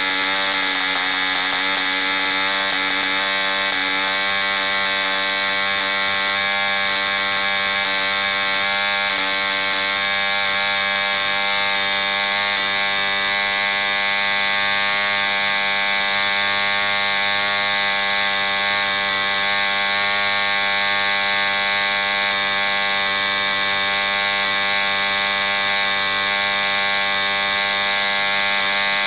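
ED Hunter 3.46 cc model diesel engine running at about 6000 rpm, turning an 11x6 wooden propeller. The pitch wavers slightly in the first few seconds while the compression lever is set, then holds steady.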